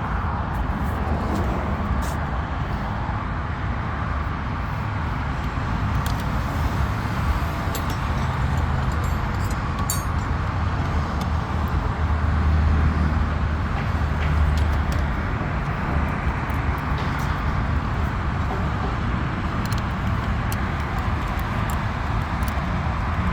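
Steady vehicle noise: a continuous low rumble that swells slightly about halfway through, with a few faint clicks.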